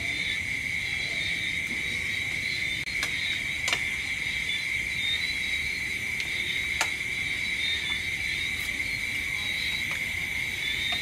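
Steady chorus of night insects, a continuous high trill, with a few sharp clicks of spoons against plates.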